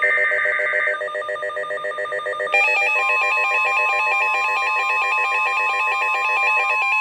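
NOAA Weather Radio alert for a tornado warning: rapid trilling, ringing alert beeps throughout, joined about two and a half seconds in by the steady 1050 Hz warning alarm tone, which runs on under the beeping.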